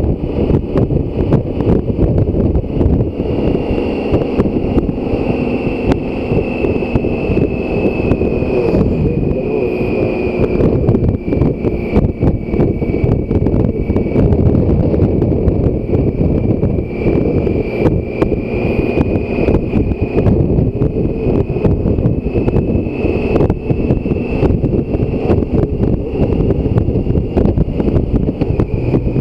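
Wind rushing and buffeting over the microphone of a BMW K1600 GTL motorcycle at cruising speed, with its inline-six engine running underneath. A faint high whine sits above the noise, drifting slowly in pitch.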